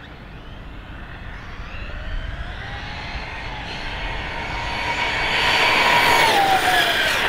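ARRMA Kraton 6S RC truck with a Leopard 4082 2000kV brushless motor on 6S, making a full-throttle speed run: a high whine rises in pitch as it accelerates and grows louder as it approaches. Near the end it passes close by at about 100 km/h and the pitch drops suddenly.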